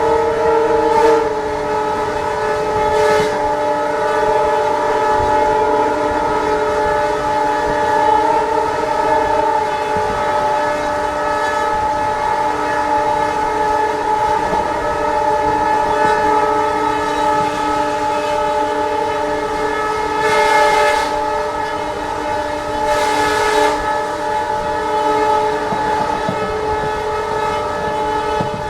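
Diesel locomotive horn held on continuously, a steady chord of several tones, over the sound of the train on the move. Brief rushes of noise cut in about a second in, about three seconds in, and twice more past the twenty-second mark.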